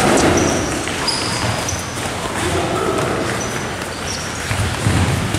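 Boxing-gym training noise: several short, high squeaks of sports shoes on the wooden floor, mixed with dull thuds of gloved punches and footwork during sparring, in an echoing hall.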